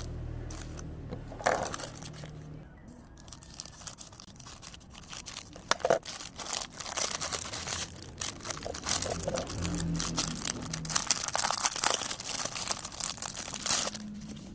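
Plastic packaging crinkling and rustling as it is handled and opened by hand, in a dense run of crackles from about three seconds in.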